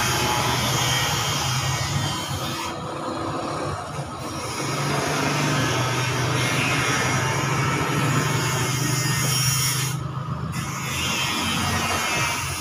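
Motorcycle tricycle engine idling, a steady low hum under rough street noise.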